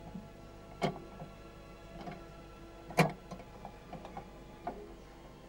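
Irregularly spaced sharp ticks and clicks, the loudest about three seconds in, over a faint steady hum.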